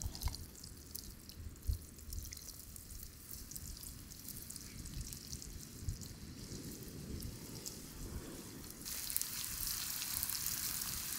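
Fries frying in hot oil in a cast-iron skillet over a wood fire, sizzling and crackling as they go back in for their second fry. The sizzle grows louder and denser about nine seconds in.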